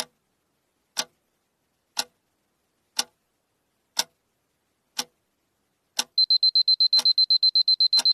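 Countdown timer sound effect: a clock ticking once a second, then, about six seconds in, a rapid high electronic alarm beeping, about eight beeps a second, over the ticks, signalling that time is up.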